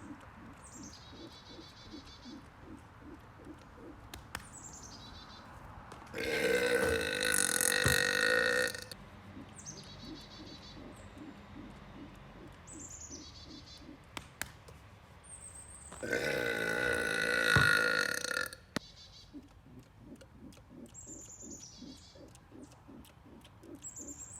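Two long, loud belches, each lasting about two and a half seconds, the first about six seconds in and the second about sixteen seconds in. Between them birds chirp faintly, short calls falling in pitch every few seconds.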